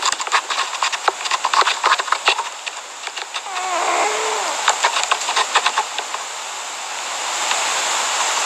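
A cat snoring, its breathing noisy and full of irregular crackling clicks, with a brief wavering tone around the middle and a steadier breathy hiss in the last couple of seconds.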